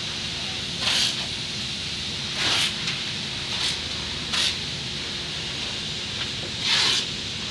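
Masking tape being pulled off the roll in short rips, about five of them, while it is laid along a car's body for paint masking, over a steady background rush of air.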